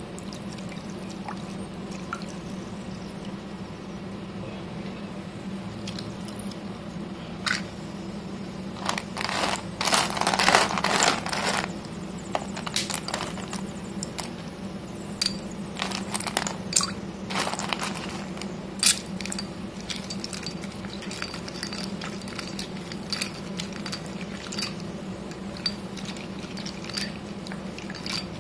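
Wet slate pencils splashing and clattering in water in a stone mortar, loudest in a dense burst about ten seconds in, then scattered clicks and small wet sounds as a hand stirs the pencils against the stone. A low steady hum runs underneath.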